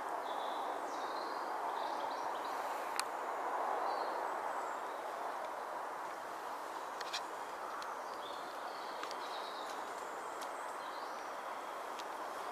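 Woodland ambience: small birds chirping here and there over a steady background rush, with a few short sharp clicks.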